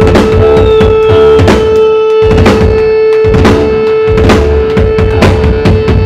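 Live emo/metalcore band playing: electric guitar, bass guitar and drum kit, with drum hits cutting through a dense wall of sound. A single steady tone is held throughout.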